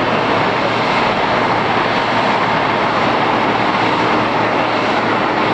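Boeing 787-8 airliner's Rolls-Royce Trent engines running steadily at idle during pushback: an even, loud rushing noise with a faint steady whine.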